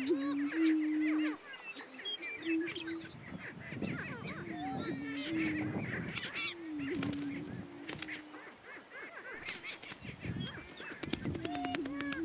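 Greater prairie chickens calling on a lek: a low, hollow booming note held for a second or two and repeated every few seconds, over many short, higher cackling calls from the males, with a run of sharp clicks near the end.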